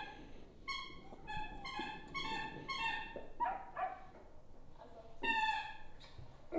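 A dog whining in a run of short, high-pitched whines: about seven in the first three seconds, then two lower ones, and another just after five seconds in.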